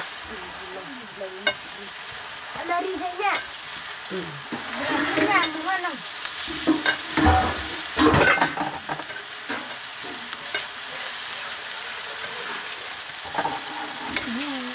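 Leafy greens sizzling in a black wok over a wood fire while being stirred with a wooden spatula, with occasional knocks of the spatula against the pan.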